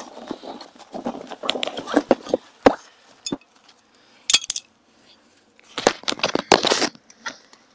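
Handling and movement noises on a stony shore: scraping and rustling, several sharp clicks and clinks, and a louder rustling patch near the end.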